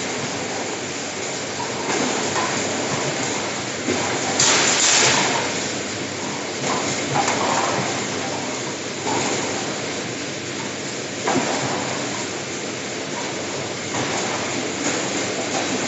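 Rotary disk turntable and conveyor of a cake packing line running, a steady mechanical rumble and clatter with irregular louder rattles. About four and a half seconds in comes a louder hissing rush.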